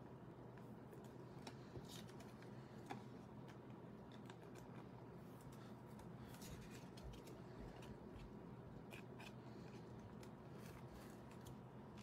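Faint rustling and light clicks of plastic card sleeves and rigid top loaders being handled as trading cards are slid into them, over a low room hum.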